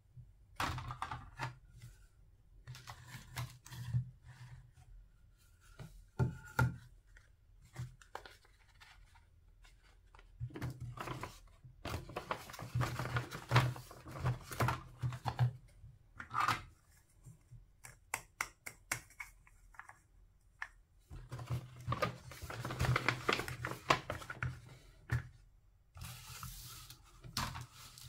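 Close-up handling sounds: a cardboard takeout box is scraped, rubbed and folded open by hands, with light taps and clicks as small toy food pieces and cartons are set down. The sounds come in irregular bursts of rustling and scraping, with a brief hissy rustle near the end.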